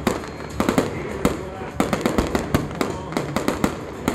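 Aerial fireworks bursting in quick succession: an irregular string of sharp bangs and crackles, about three or four a second.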